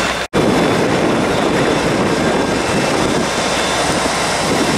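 GWR Class 800 IET train running past along the platform: a steady, loud rush of wheel and running noise.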